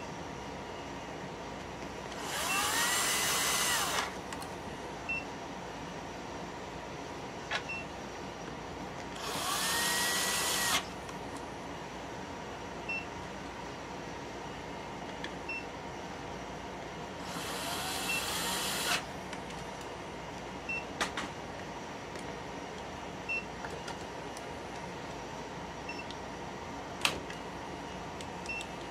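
Cordless power screwdriver driving in three screws on a rack-mount UPS battery, one run of about one and a half seconds for each. The motor whine rises at the start of each run, holds, and drops as it stops. Steady hum of rack equipment fans underneath.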